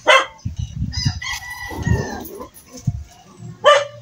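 A rooster crows once in the middle, one long call that falls in pitch at the end. A dog barks once near the start and again near the end.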